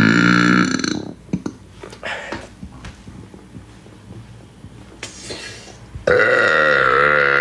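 A woman's long, loud burps: one drawn-out burp ends about a second in, then a few seconds of quieter clicking sounds, then another long burp starts about six seconds in.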